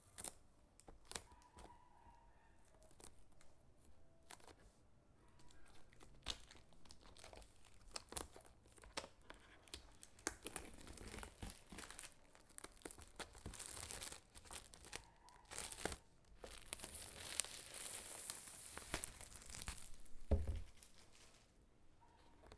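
Packaging being handled and torn open: crinkling wrapping and tearing with many small crackles, busiest in the second half, and a low thud about 20 seconds in.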